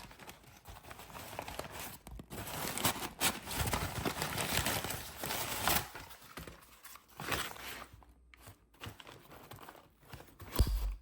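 Paper packaging crinkling and tearing as a vacuum cleaner attachment is unwrapped, with scattered light knocks and one sharp thump near the end.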